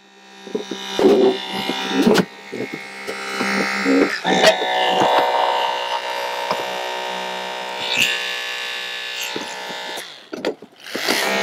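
Holmatro hydraulic spreader running with a steady buzzing hum as it peels a car's front fender away, with sharp cracks and creaks from the sheet metal as it gives. The hum drops off briefly near the end.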